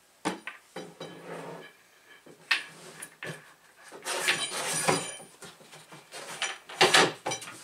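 Plastic cart body and steel axle being handled: scattered knocks and clatters, a longer scraping rattle about four seconds in, and a loud knock near the end.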